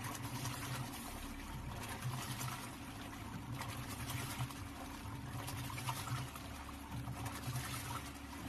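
Washing machine wash motor humming in short, irregular spells while water sloshes and trickles in the tub. The motor turns only one way instead of alternating forward and reverse: the motor is faulty.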